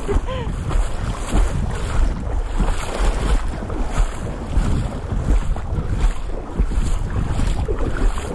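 Wind buffeting the microphone in gusts over the steady rush of river water.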